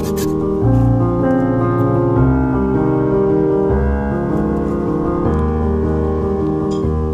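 Background music: slow piano chords held over a bass line, changing about once a second.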